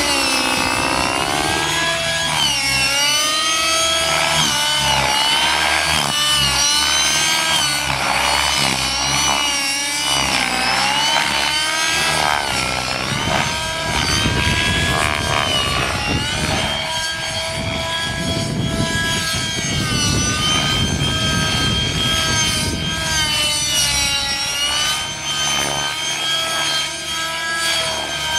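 Model helicopter flying aerobatics: a loud, high engine-and-rotor whine whose pitch keeps gliding up and down as it manoeuvres.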